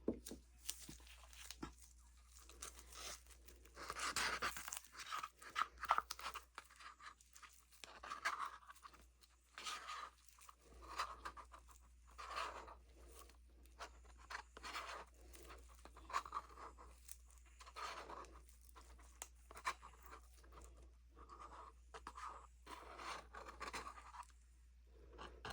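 Faint, irregular scraping and crackling from hands working with plastic mixing cups and stir sticks.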